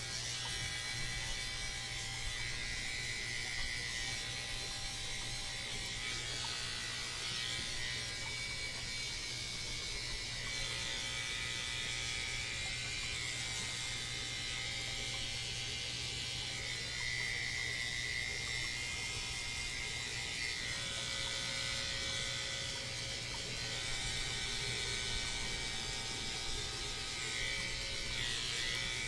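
Corded electric dog-grooming clippers running with a steady buzzing hum as they clip the coat on a small dog's hind leg and foot.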